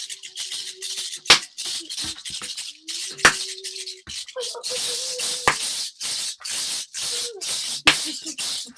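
Shakers being shaken in quick bursts, about three a second: a large bead-netted gourd shaker and a small egg shaker. Four sharp clacks stand out among the rattling, about two seconds apart.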